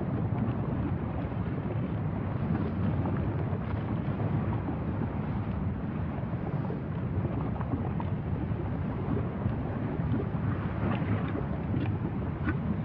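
Wind buffeting the microphone: a steady, uneven low rumble. A few faint clicks come near the end.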